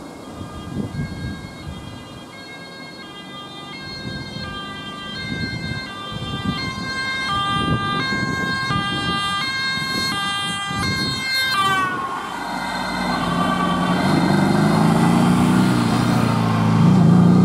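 Ambulance siren sounding a high-low two-tone pattern, growing louder as it approaches. About twelve seconds in, the siren's pitch drops as the ambulance passes. After that an engine is heard close by, rising and falling in pitch.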